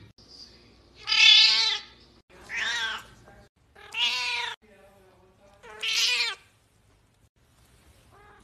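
Deaf white cat meowing loudly four times in a row, each drawn-out call under a second long and coming roughly every one and a half seconds, with a faint short meow near the end.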